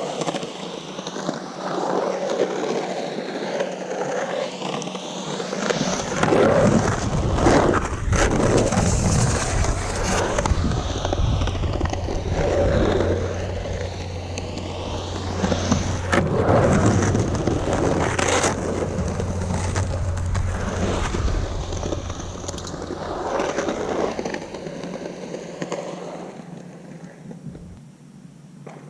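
Skateboard rolling and carving around a concrete bowl on hard 97A Santa Cruz Slime Balls urethane wheels. The wheel roar swells and fades as the board moves through the transitions, heaviest through the middle, with a few sharp clacks.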